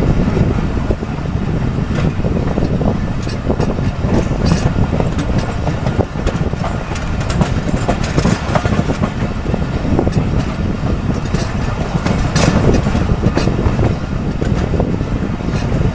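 Passenger train's steel wheels running over the rails: a steady heavy rumble broken by irregular clicks and clacks from rail joints and points, with a few sharper clacks, the loudest about twelve seconds in.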